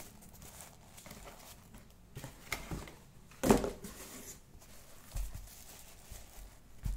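Handling noise from a pair of running shoes: soft knocks and rustles as they are turned over and set down on a bedspread, with one sharper thump about halfway through.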